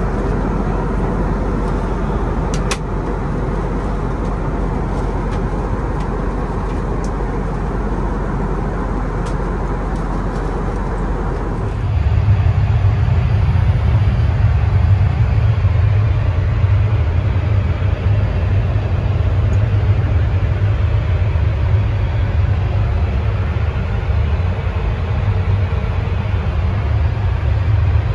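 Steady in-flight cabin noise of an Airbus A321neo: an even rush of airflow and engine rumble, with a few light clicks in the first part. About twelve seconds in it cuts abruptly to a louder, deeper rumble.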